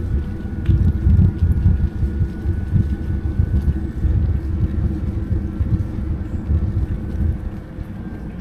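Wind buffeting the microphone of a camera on a moving e-bike, over a steady low rumble of tyres rolling on rough asphalt, with a faint steady whine from the e-bike's electric motor underneath.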